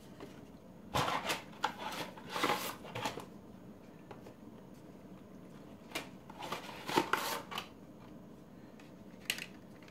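Stiff dry lasagna noodles rattling and scraping against each other and their cardboard box as they are pulled out and laid on the dish. The rustling comes in two bouts of short scratchy sounds, with a single click near the end.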